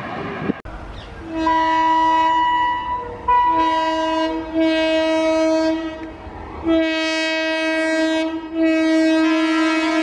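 WAP-7 electric locomotive's air horn sounding a series of long, steady blasts, each one to two seconds, with short gaps between them.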